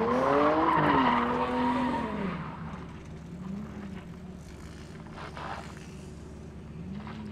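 Chrysler 300 sedan doing donuts: the engine revs up and holds high while the rear tyres spin and squeal. About two seconds in, the revs and tyre noise drop away to a lower engine sound, which rises slightly again near the end.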